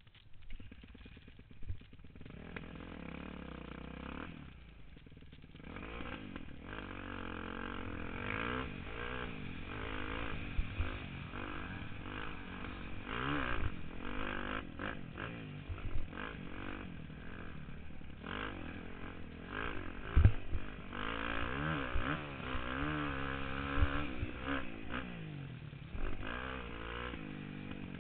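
Motocross dirt bike engine heard from the rider's helmet camera, quiet for the first couple of seconds, then revving up and down as it accelerates and shifts on the track. A few sharp knocks come through from bumps, the loudest about two-thirds of the way in.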